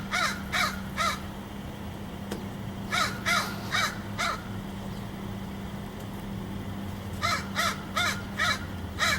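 Crow cawing in three quick runs of short, hoarse caws: three at the start, five about three seconds in, and six near the end, each caw rising and falling in pitch. A steady low hum runs underneath.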